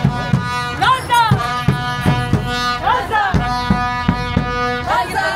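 Middle Eastern-style music: a steady drone under a melody that slides up and down in pitch, over a regular drumbeat about two to three strokes a second.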